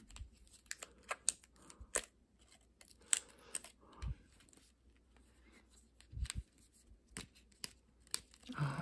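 A trading-card pack wrapper being picked at and torn open by hand: quiet, scattered crinkles, ticks and small tears, with a few sharper snaps about one to two seconds in and around six and seven seconds in.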